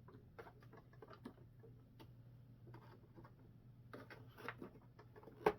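Faint scattered clicks and taps of small parts being handled and fitted on a model tank, with a louder cluster about four seconds in and one sharp click just before the end, over a steady low hum.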